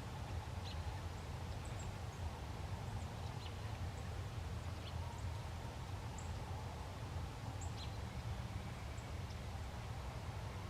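Outdoor ambience: scattered short, high bird chirps over a steady low rumble.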